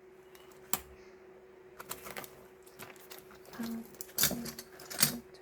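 Light, scattered clicks and taps of small stationery items and packaging being handled on a table, with a few louder taps near the end.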